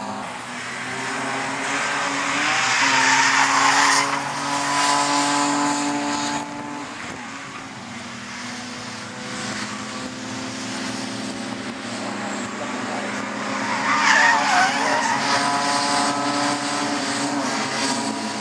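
Several racing saloon cars passing on the circuit, their engines running hard and overlapping in pitch. The sound swells as cars go by, loudest about three seconds in and again about fourteen seconds in.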